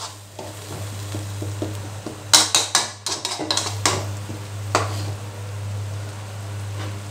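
Metal spatula scraping and stirring a chili, garlic and shallot paste simmering in fish sauce in a wok, with a run of sharp scrapes between about two and five seconds in. Then the sauce sizzles gently over a steady low hum.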